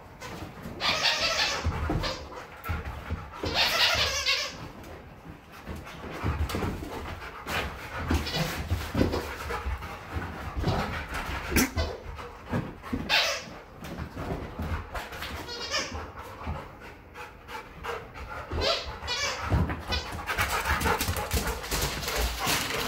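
A dog throwing a play tantrum, vocalizing in repeated short bursts, with scattered knocks and scrambles of its paws on a hardwood floor.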